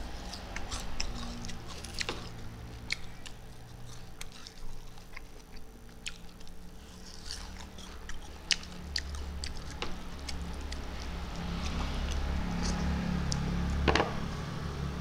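Close-miked chewing of rice and small fish, with wet mouth smacks and scattered sharp clicks. The loudest click comes near the end.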